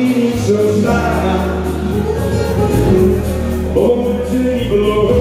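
Party music with a singing voice over long held bass notes.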